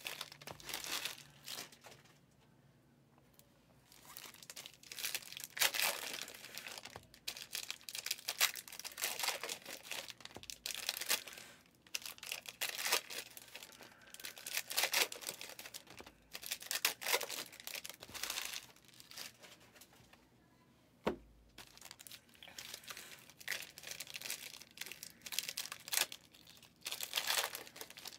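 Wrappers of 2023 Panini Illusions football card packs being torn open and crinkled by hand, in irregular bursts with a couple of short pauses. A single sharp click comes about two-thirds of the way through.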